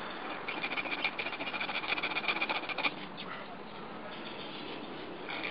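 Small hand saw cutting into a golf ball's flexible outer cover: quick rasping strokes for about two and a half seconds, then a few fainter strokes.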